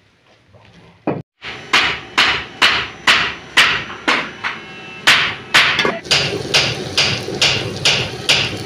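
A steady run of sharp knocks or slaps, about two a second, each dying away quickly.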